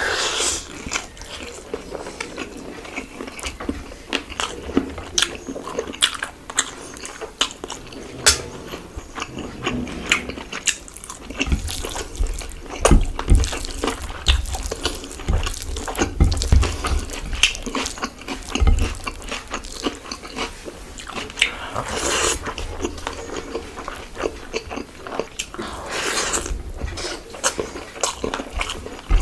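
Close-up eating sounds of mutton biryani being chewed and bitten: a steady run of wet mouth clicks and smacks, with a few dull low thumps partway through.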